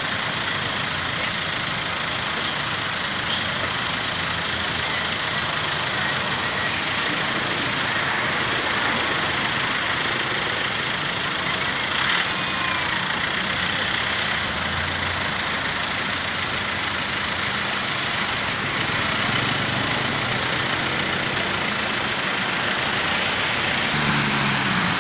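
Steady vehicle and engine noise, an even hiss and hum with no let-up, and a single faint click about halfway through.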